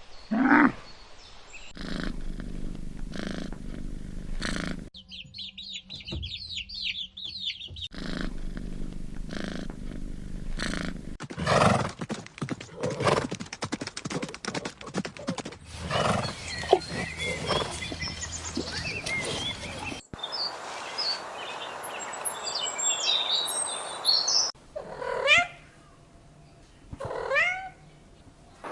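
A run of different animal sounds cut one after another: short pitched animal cries, with spells of high rapid bird chirping in between. Two separate cries come near the end.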